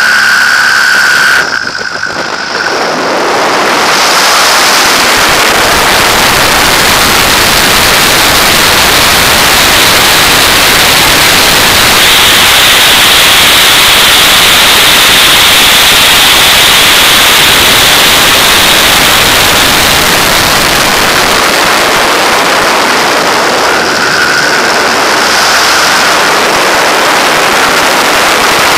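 Pitts biplane in flight heard from a camera mounted outside the airframe: loud, steady wind noise over the microphone with the engine running underneath. The noise dips briefly about two seconds in.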